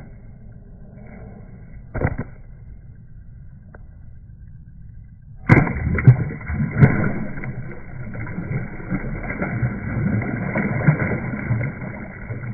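A boat getting under way: a quiet stretch with one short knock, then about halfway in a loud, steady rush of motor and wind noise starts suddenly and keeps going.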